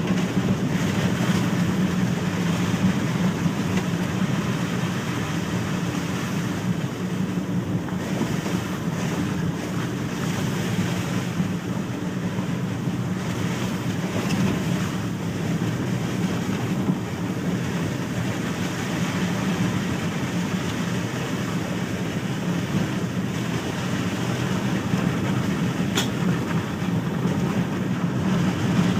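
Steady road noise heard inside a car on a wet, slushy dirt road: tyres rumbling and the engine running. One sharp tick sounds near the end.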